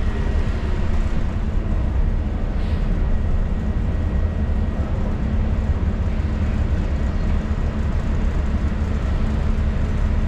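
City bus engine and drivetrain running, heard from inside the passenger cabin: a steady low rumble with a constant hum.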